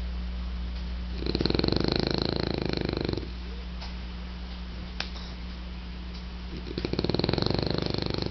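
French bulldog snoring in its sleep: two long, fluttering snores of about two seconds each, roughly five seconds apart, with quieter breathing between them.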